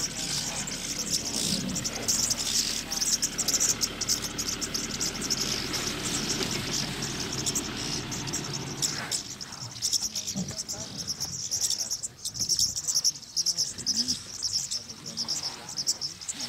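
Insects in the bush shrilling in a dense, steady high chorus. For the first nine seconds or so a broader, rougher noise lies underneath, then falls away.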